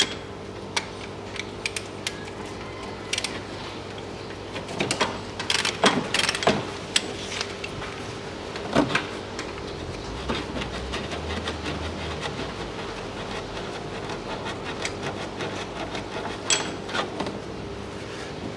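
Ratchet wrench and metal tools clicking and clanking irregularly as bolts on an engine mounting bracket are worked loose, with a flurry of knocks about five to seven seconds in and more about nine and sixteen seconds in. A steady low hum runs underneath.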